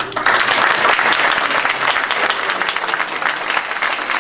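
Audience applause breaking out all at once and carrying on steadily, loudest for the first couple of seconds.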